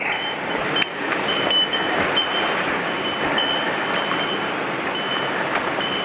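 Mountain stream water rushing steadily over stones, with a few sharp clinks of footsteps on the river cobbles.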